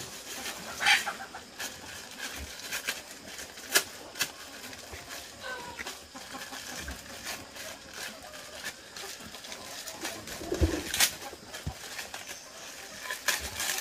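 Birds calling, likely domestic fowl, with scattered sharp clicks and knocks and a dull thump a little before the end.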